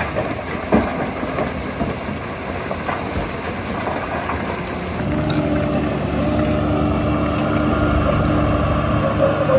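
Heavy diesel engine of earthmoving machinery running, with a few sharp metallic clanks in the first three seconds. About five seconds in the engine gets louder and steadier.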